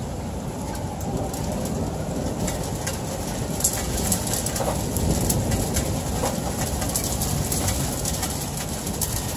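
Heavy rain falling in a thunderstorm, a steady rushing noise with a low rumble, with scattered sharp ticks of drops from about three and a half seconds in.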